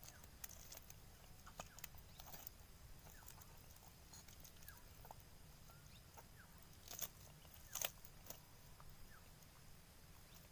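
Quiet, scattered clicks and rustles of a fishing net being handled as fish are worked free of the mesh, with two sharper clicks about seven and eight seconds in.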